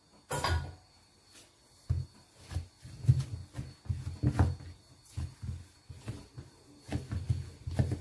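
Hands kneading and pressing a ball of pastry dough on a tabletop: irregular dull thumps and short knocks, with a sharper knock just after the start.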